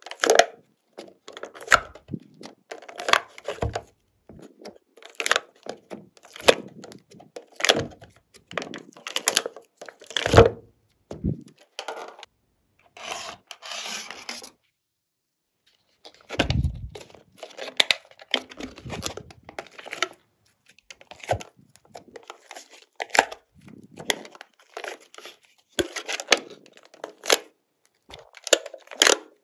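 Slime being squished, stretched and folded by hand: irregular sticky crackles and pops, with a short break of silence about halfway through.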